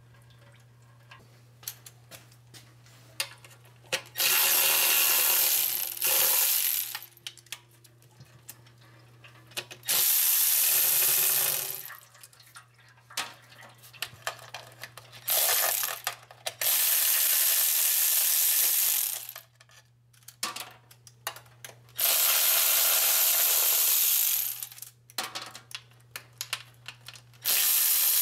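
Air ratchet run in about eight hissing bursts of one to two and a half seconds each, with clicks of the tool and bolts between them and a steady low hum underneath: it is spinning out the 10 mm bolts of a transmission oil pan that has no drain plug, so the pan can be dropped to drain the fluid.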